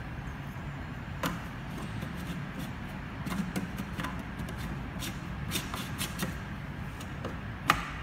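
Light scattered clicks and knocks of plastic bottles and screw caps being handled on a hydrafacial machine, with one sharper click near the end, over a low steady hum.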